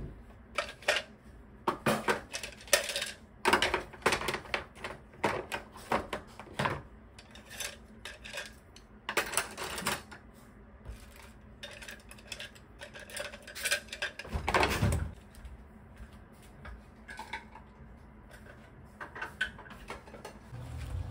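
Cutlery and kitchen utensils clinking and clattering as they are picked up and laid into a plastic drawer organiser tray, in irregular clicks and clusters of clatter. A heavier knock comes about two-thirds of the way through.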